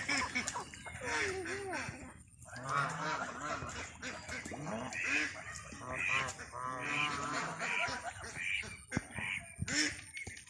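A flock of waterfowl honking: many short, repeated nasal calls overlapping one another.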